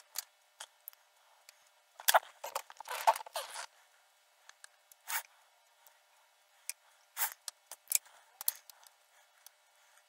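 Faint rustling, scraping and small clicks of audio cables and heat-shrink tubing being handled, in short irregular bursts, busiest from about two seconds in.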